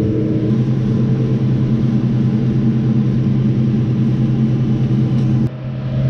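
New Holland T6 tractor engine running steadily, heard from inside the cab while it drives a flail mower. It makes an even, low drone, which briefly drops in level near the end.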